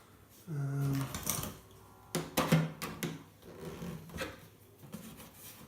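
Sheet-metal case panel of an old PC tower being worked loose by hand: a run of sharp clicks, knocks and scrapes, loudest about two and a half seconds in, with a brief low hum near the start.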